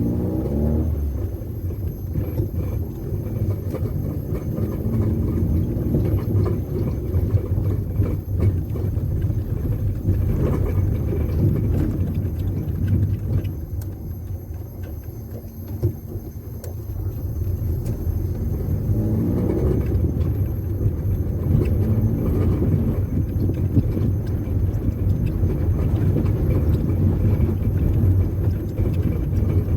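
Chevrolet Chevette's inline four-cylinder engine, running on Arduino-controlled fuel injection, driving along. Its pitch rises just after the start, it quietens and drops around the middle as the car eases off, then it climbs again about two-thirds through and runs steadily.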